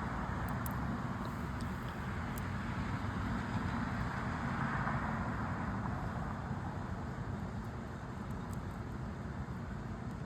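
Outdoor road traffic noise: a steady hiss and rumble of cars that swells around the middle and eases off near the end.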